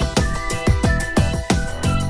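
Electronic background music with a steady, driving beat of deep kick drums under sustained synth notes.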